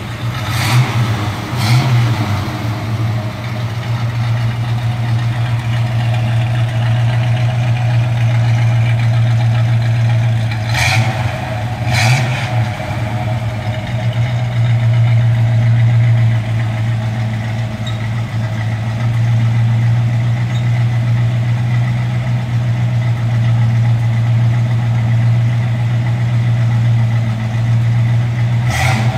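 1971 GMC 1500 pickup's engine idling steadily, with short blips of the throttle: two near the start, two about halfway through, and one at the end.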